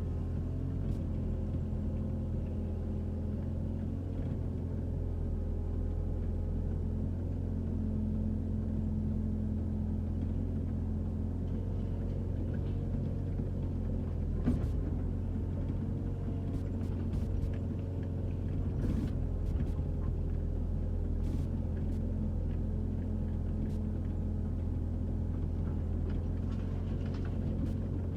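Excavator's diesel engine running steadily with a deep, even drone, with a few faint clicks and one sharper knock about halfway through.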